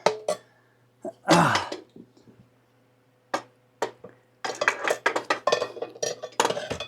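Metal parts of a motorcycle rear wheel assembly clinking and knocking as the axle and spacer collars are worked into place. There is a short noisy burst about a second in, a couple of lone clicks, then a quick run of clinks in the last few seconds.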